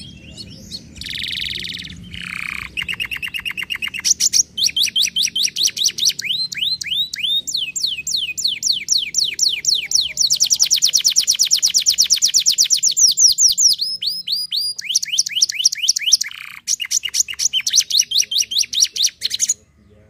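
Domestic canary singing one long song of rapid trilled rolls, each a quick run of repeated notes, some as falling sweeps, one phrase after another, stopping just before the end.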